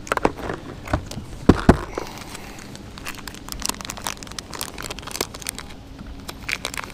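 Crinkling of a small plastic bag of soft-plastic grubs being handled and opened, with a few sharp knocks in the first two seconds, the loudest two close together, from the plastic tackle box.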